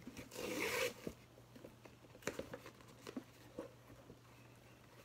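A cardboard 'Do Not Bend' rigid mailer ripped open in one quick zip-like tear lasting about half a second, followed by a few light taps and rustles of the card as it is handled.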